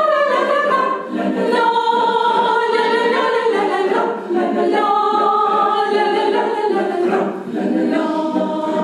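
A choir singing a cappella, voicing an instrumental piece without words, with several parts held together. The sustained phrases are broken by short breaks about a second, four seconds and seven and a half seconds in.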